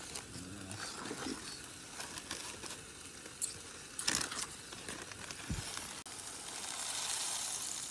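A spoon stirring and scraping thick mashed potato in a metal camp pot, with scattered clicks of the spoon against the pot. Near the end a steady hiss swells up.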